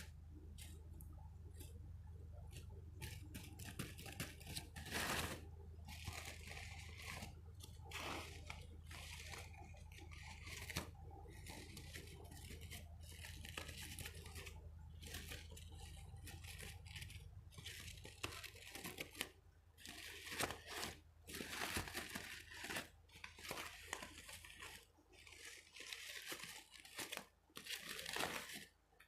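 Close-miked ASMR crinkling and scratching of an object handled by hand, in irregular short bursts that turn choppier past the middle, over a faint steady low hum.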